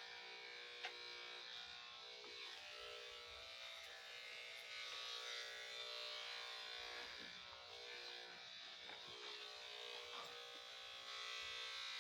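Electric dog grooming clippers running with a steady buzz while trimming a dog's matted coat, with a small click about a second in.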